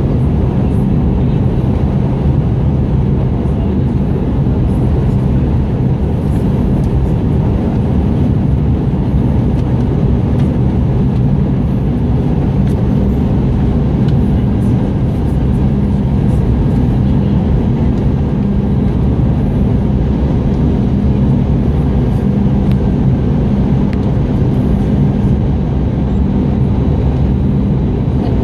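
Steady cabin noise inside an Airbus A320-211 seated by the wing on the approach: the CFM56-5A turbofan and the airflow over the fuselage, a level low rumble with a faint hum that does not change.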